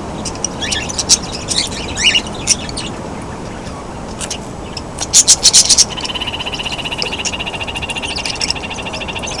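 Aviary parakeets (kakarikis, cockatiels, budgerigars) chirping and calling. A quick run of about six sharp, loud calls comes about five seconds in, then a fast, steady pulsing trill.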